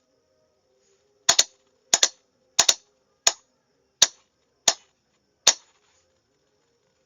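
Morse code being sent as loud, sharp key clicks: three quick double clicks, then four single clicks about two-thirds of a second apart.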